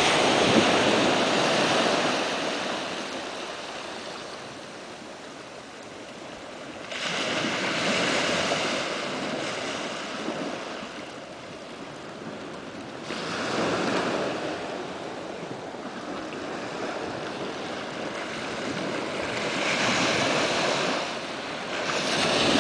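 Wind and surf on a beach: a rushing noise that swells and fades in surges every five or six seconds.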